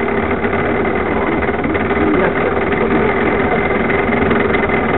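Steady rumble and rattling vibration of a kart trolley's wheels rolling over asphalt, picked up through a camera mounted on the kart, with a constant hum underneath.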